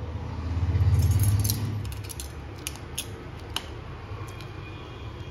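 A low rumble swells and fades in the first two seconds over a steady low hum, followed by a few light, sharp metallic clicks: a metal spoon knocking against an aluminium pot as spinach leaves are pressed down into hot water.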